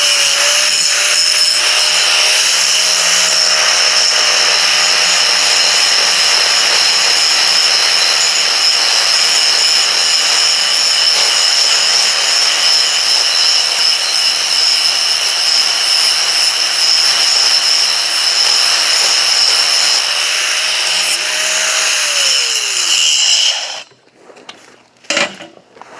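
Electric grinder running against steel, grinding slag out of a plasma-cut notch in a steel pipe with a steady, high whine. Near the end the grinder is let off: its pitch falls as it winds down, and it stops.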